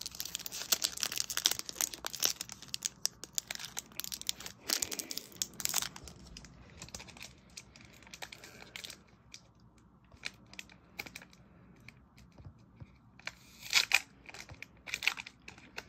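Foil Pokémon booster pack wrapper being torn open and crinkled, dense and crackly for the first six seconds or so. After that come sparser, quieter crinkles and handling clicks, with a few louder crinkles near the end.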